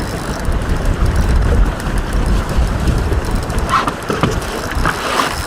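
Wind buffeting the microphone as a loud, uneven low rumble, with a few brief higher sounds about four and five seconds in.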